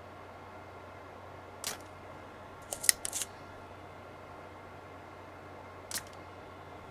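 Sharp mechanical clicks from a spring-loaded desoldering pump being fired while desoldering circuit-board pins: one click, then a quick run of two or three, then another near the end, over a steady faint hum.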